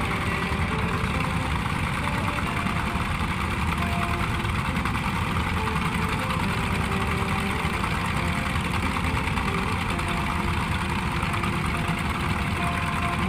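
A small boat's engine running steadily at an even level, without let-up.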